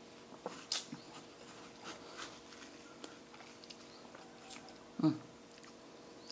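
Metal spoon scooping and scraping the flesh of a watermelon out of its rind, with soft chewing and small clicks. A brief low sound about five seconds in is the loudest moment.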